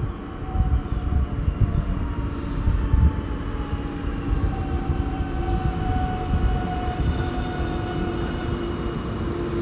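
Train running through the station: a heavy low rumble, with a whine of several tones that slowly falls in pitch over several seconds, and a new steady tone coming in near the end.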